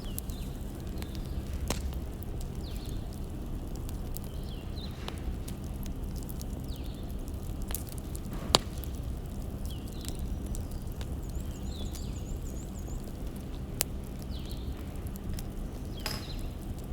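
Wood fire crackling: a steady low rumble with sparse sharp pops, the loudest about halfway through.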